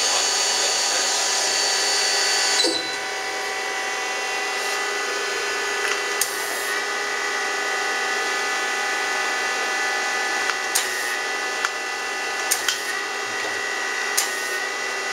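KIA CNC turning center running with a steady machine whine made of several held tones. About three seconds in it drops in level and its highest tone stops. A few short sharp clicks come later on.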